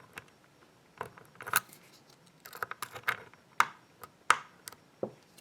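Lock pick working the plates (wafers) of a small three-plate Japanese showcase lock held under tension: irregular light metallic clicks and scrapes, a few plates setting as it is picked.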